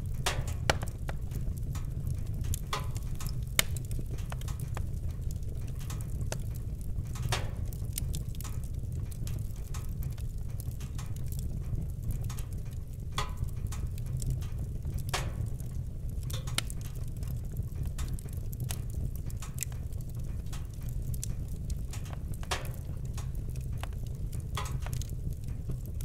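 Wood fire crackling: a steady low rumble of burning logs with irregular sharp pops and snaps, a few of them louder than the rest.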